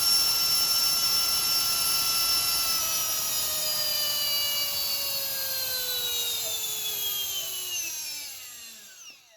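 A 55 mm 8-blade electric ducted fan with a 4750 kV brushless motor running with a high whine, then spooling down. Its pitch sinks slowly at first, then falls fast as it coasts to a stop near the end.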